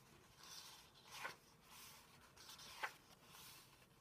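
Faint rustling of paper as the pages of a square-bound program book are turned by hand, with two short, sharper page flicks, one a little over a second in and one near three seconds.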